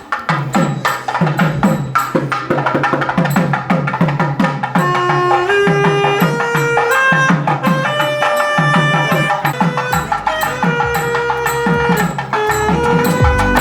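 Music with a busy hand-drum beat under a melody of held notes that step up and down; a deeper bass comes in about ten seconds in.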